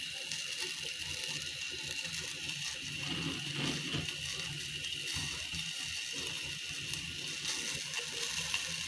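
Water in a saucepan on the stove coming to the boil: a steady low crackle and fizz of small bubbles, with a faint steady high whine throughout.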